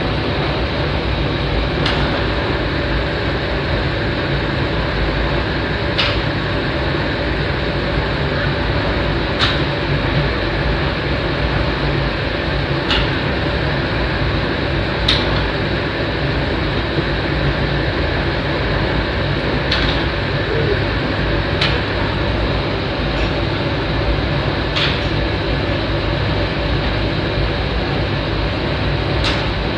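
Steady rushing of a commercial kitchen's ventilation, loud and unchanging, with sharp clicks every two to four seconds.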